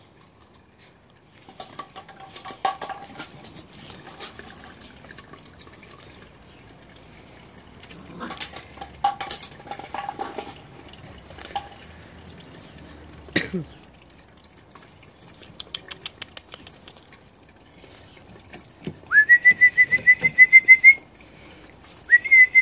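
A whistle blown in two trilling blasts near the end, each a steady high note that warbles rapidly, the first about two seconds long; these are the loudest sounds. Before them come scattered light knocks and short faint sounds, with one sharper knock about halfway through.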